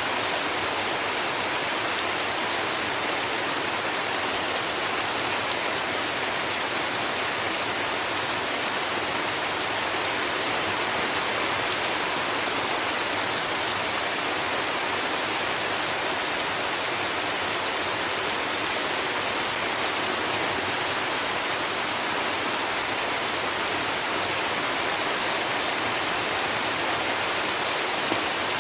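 Steady heavy rain: an even hiss of falling water with many fine drop patters, unchanging throughout.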